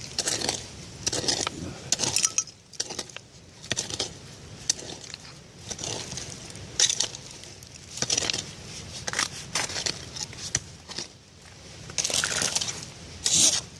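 Digging through dirt and dump debris: irregular crunching and scraping, with small clinks of glass and metal pieces.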